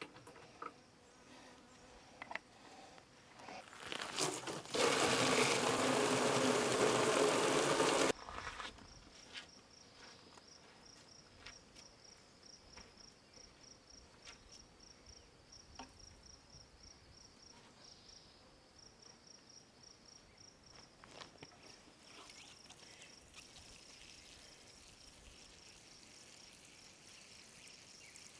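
Insects chirping in a steady, high, pulsing trill, with scattered light clicks. Near the start a loud, steady rushing noise lasts about three seconds and cuts off suddenly.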